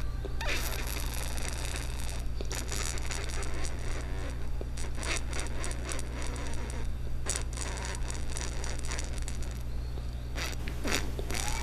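Irregular crackling and scratching over a steady low hum. Near the end, a few rising whistling tones begin.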